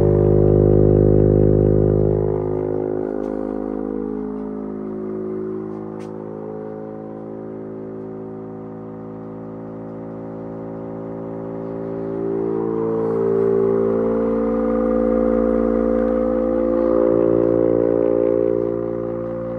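RH White electric fire siren running at low speed, giving a low, wavering tone. The tone eases off a few seconds in and swells back up about twelve seconds in before dropping near the end. It is held slow because its 380-volt three-phase motor is fed 220 volts by an undersized VFD.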